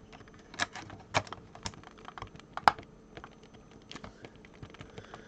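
Irregular sharp clicks and small crackles of stiff plastic packaging being cut and pried open with a knife, a few louder snaps among softer ticks.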